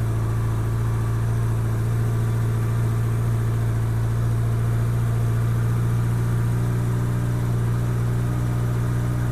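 A 1987 Honda GL1200 Goldwing's flat-four engine idling steadily on choke shortly after a cold start.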